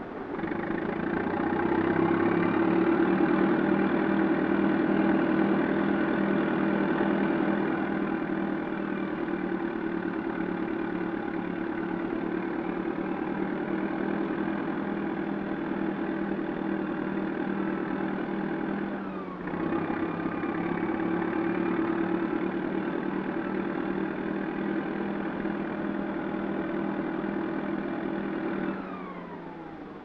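Heavy bulldozer diesel engine running steadily, with a pulsing low drone. It breaks off briefly about two-thirds of the way through and drops away shortly before the end.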